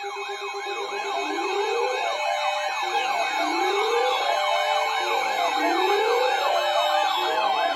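Several electronic sirens sounding at once. A fast yelp rises and falls about four times a second, and a lower wail rises again and again every second or two, over a steady tone.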